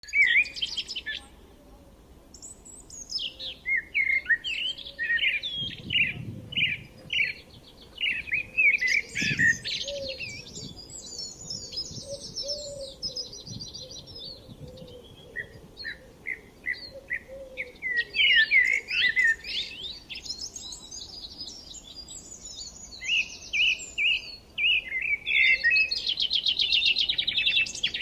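Several songbirds singing and chirping, their phrases overlapping, with quick runs of repeated notes and fast trills.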